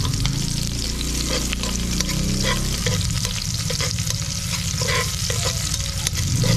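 Onion, garlic and ginger sizzling in hot oil in a metal pot as they are sautéed and stirred, with scattered short pops and scrapes over the sizzle. A low steady hum runs underneath.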